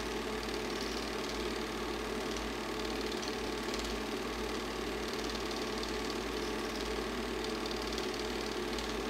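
Super 8 film projector running: a steady mechanical whir and rapid clatter of the film transport, unchanging throughout.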